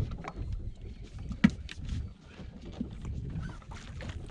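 Wind rumbling on the microphone, with a few light knocks and one sharp knock about a second and a half in.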